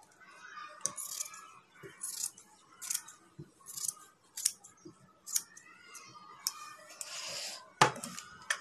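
Large tailor's scissors cutting through folded checked cloth, with repeated snips roughly once a second. A sharp knock comes near the end.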